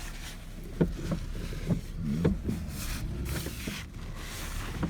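Vehicle engine running low and steady while the vehicle reverses slowly, with a few short squeaks and knocks over it.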